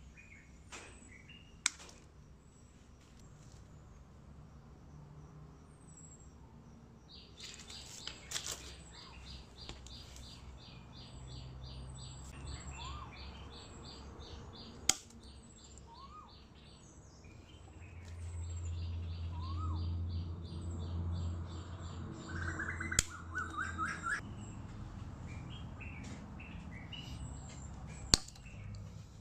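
KS Tools pliers and diagonal cutters snipping through black cable: four sharp snaps, spaced several seconds apart. Birds chirp and trill in the background.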